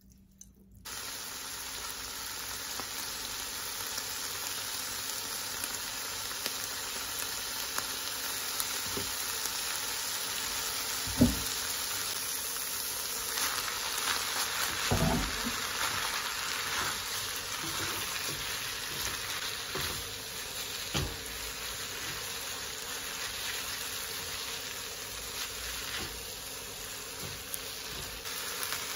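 Somen noodles and shredded vegetables sizzling steadily as they are stir-fried in a nonstick frying pan. The sizzling starts about a second in, and a few knocks of the utensil against the pan come through, the loudest about eleven seconds in.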